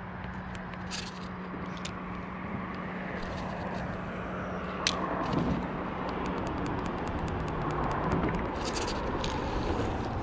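Steady rushing ambience with a low traffic hum from the highway bridge overhead, which fades out about two-thirds of the way through. Over it come scattered light clicks and ticks from a spinning reel and rod being handled for a cast, with one sharp click near the middle.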